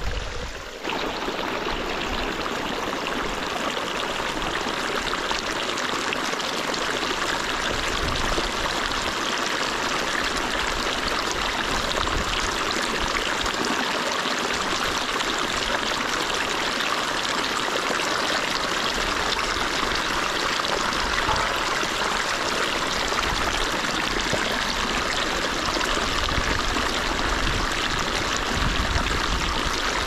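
Steady rushing of water flowing along a canal.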